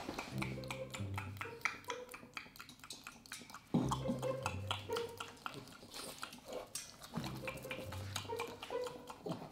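Rapid crunching and mouth noises at a dog's food bowl, over background music with a repeating low bass line.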